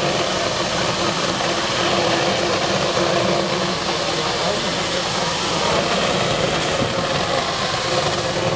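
Steady rushing, engine-like hum with no clear breaks, with a crowd murmuring beneath it.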